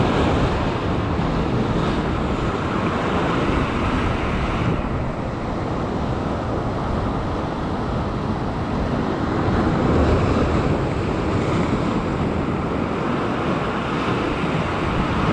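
Sea surf breaking and washing over a rocky shore ledge in a continuous rush, with wind buffeting the microphone.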